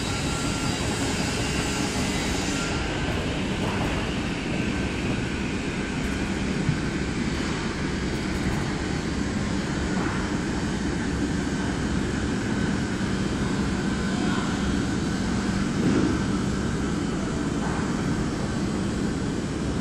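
Steady mechanical drone: a low hum under an even rush of noise, with no breaks.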